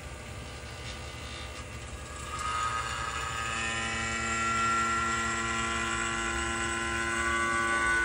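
Refrigeration vacuum pump running steadily, a motor hum with several held tones, pulling a vacuum on a bell jar. It gets louder about two seconds in.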